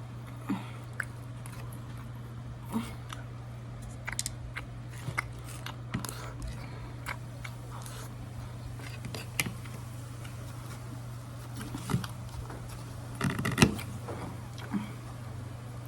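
Crab shell being cracked and picked apart by hand while eating: scattered sharp clicks and crunches, the loudest cluster about 13 seconds in, over a steady low hum.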